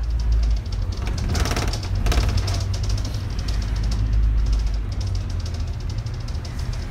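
Low, steady rumble of a double-decker bus on the move, heard from its upper deck, with a brief higher rattle about a second and a half in.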